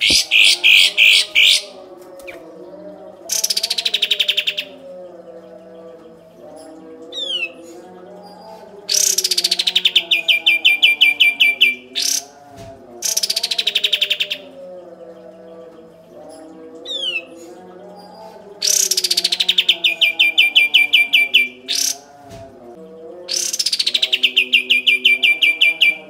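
Kapas tembak bulbul singing its rapid 'tembak' song: six loud bursts of quickly repeated notes, each starting high and dropping into a fast steady rattle a second or three long. A couple of short falling whistles come between them.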